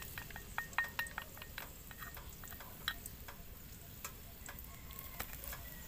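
Wooden chopsticks scraping and tapping against a small steel bowl and an aluminium wok as minced garlic in oil is scraped into the wok and stirred: quick sharp clicks for the first second and a half, then scattered taps over a faint steady hiss.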